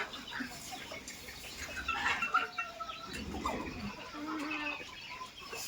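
Desi chickens calling, a mix of short clucks and squawks overlapping, with a few scattered clicks.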